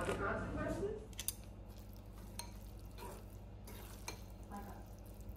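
A food packet crinkles briefly, then wooden chopsticks stir ramen noodles in a stone bowl, giving scattered light clicks against the bowl over a low steady hum.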